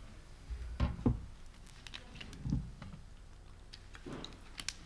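A few soft thumps and clicks over quiet room tone, from a handheld microphone and laptop being handled.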